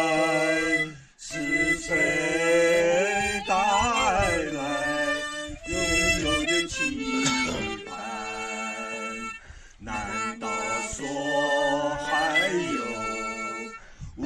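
Harmonica playing a melody in phrases, with short breaks between them.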